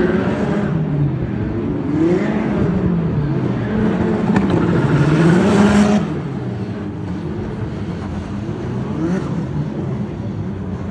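Formula 4 race cars running at speed on the circuit, their engine pitch repeatedly rising and falling. The sound is loudest for the first six seconds, then fainter as they move away.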